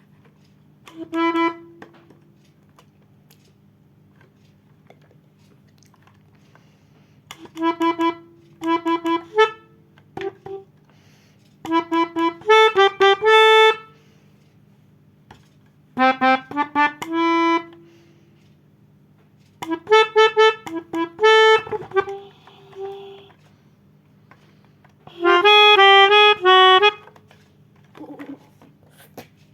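Melodica (pianika) playing short phrases of quick notes with pauses between them, picking out a 'telolet' bus-horn tune; about seven phrases, the loudest near the end.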